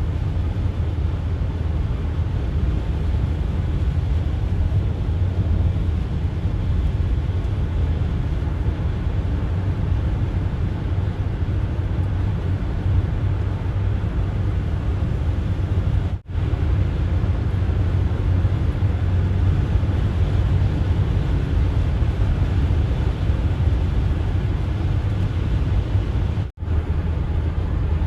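A car driving at speed on a snowy highway: a steady low rumble of road and engine noise. The sound drops out briefly twice, about sixteen seconds in and near the end.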